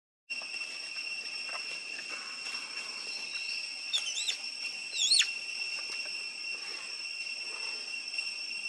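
Steady high-pitched insect drone, typical of cicadas or crickets, with two short whistled calls about four and five seconds in, each sweeping up and then down in pitch. The second call is the louder.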